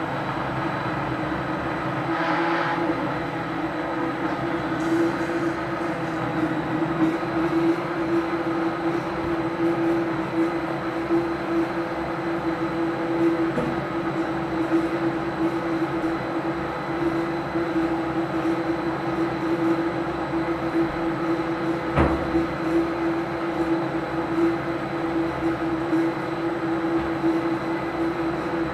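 Steady hum of a kitchen appliance's electric motor, one strong drone over a noise haze, with a single sharp click late on.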